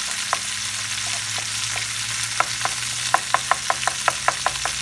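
Chicken pieces and garlic sizzling in olive oil in a frying pan, a steady hiss. About halfway through, a quick run of sharp clicks, about five a second.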